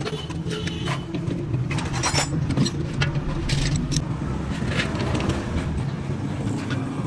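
Metal parts and tools clinking and scraping a few times over a steady low hum.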